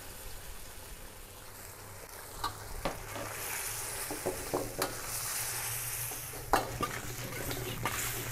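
Chicken pieces and green peas in red chilli sauce sizzling in a steel wok while a metal wok spatula stirs and scrapes through them, with a few sharp clacks of the spatula against the wok. The sizzling grows louder about three seconds in.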